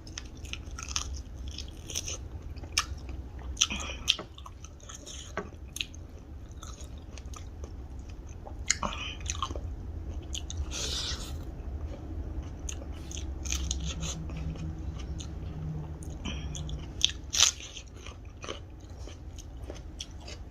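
A person chewing and biting fried pork with crunchy bits of bone, close to the microphone: irregular crisp crunches and mouth sounds, over a steady low hum.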